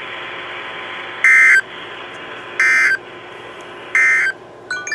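NOAA Weather Radio EAS end-of-message signal: three short bursts of screechy digital data tones, about 1.3 seconds apart, over steady radio receiver hiss, marking the end of the warning broadcast. A few brief chirps follow near the end.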